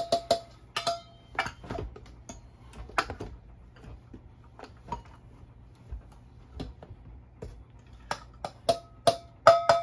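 Stainless steel measuring cup clinking and knocking against a stainless steel mixing bowl while scooping and tipping in flour: irregular taps and clicks, with the bowl ringing briefly right at the start and again in a quick run of knocks near the end.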